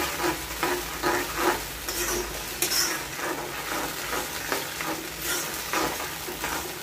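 Metal spoon stirring and scraping thick cornflour-thickened gravy in a black wok, repeated strokes about twice a second over a steady sizzle from the high flame as the sauce comes up to a boil.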